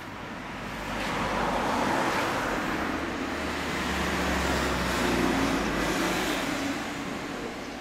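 Road traffic passing: tyre and engine noise swells as one vehicle goes by about two seconds in, then a small van goes by about five seconds in, its engine hum the loudest part.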